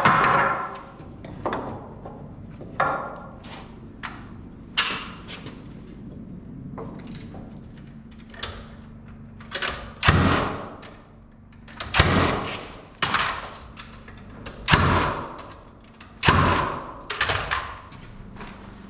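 A series of irregular heavy thuds and knocks, each ringing briefly, over a faint steady low hum.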